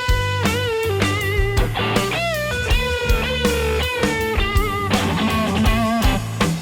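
Electric guitar played through a JHS Solo Boost pedal, a lead melody of long held notes with bends and wide vibrato over a rock backing of bass and drums.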